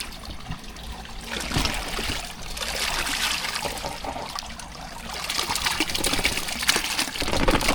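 Water trickling and splashing in uneven surges, with small clicks through it, louder about a second and a half in and again from about five seconds.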